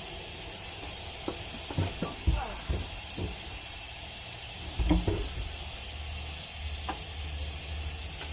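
Scattered metal clunks and knocks as a V8 engine's cylinder head is pried loose and lifted off the block, over a steady hiss.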